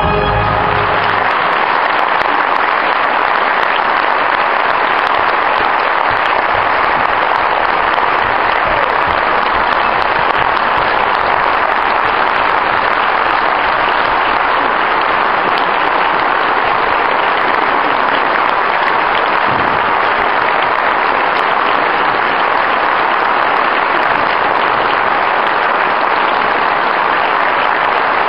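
A large audience applauding steadily and at length as a choir's song ends right at the start.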